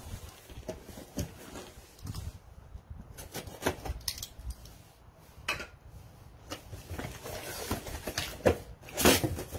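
Handling of a shipping box and its paper contents: scattered rustles, clicks and taps, with a louder rustle about nine seconds in.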